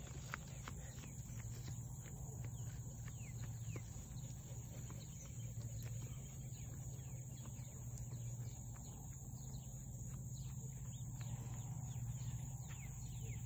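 Outdoor pond-side ambience: a steady low rumble under many short, quick, high chirps from birds.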